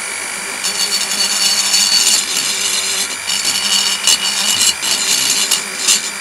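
Flexible-shaft rotary tool whining steadily at speed, its burr grinding on and off against the cast-aluminium Simson engine case as the surface is roughened, with short breaks in contact.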